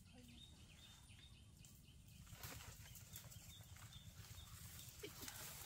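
Faint footsteps and rustling of leaves and branches as people walk through forest undergrowth, starting about two seconds in, with faint high chirping before that.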